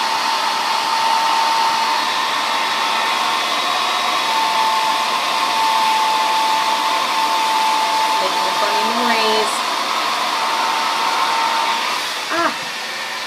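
Handheld hair dryer running on high: a steady rush of hot air with a thin constant whine from its fan motor, dropping slightly in level near the end.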